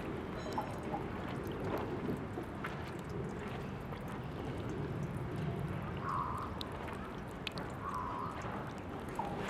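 Water running from the tap of a drinking fountain: a steady trickle with small drips and splashes.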